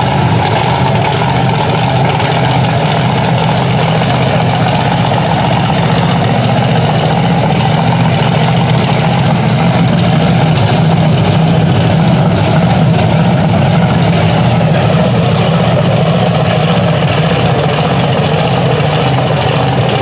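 Engine of a lifted square-body Chevy mud truck on tractor tires running at a loud, steady idle.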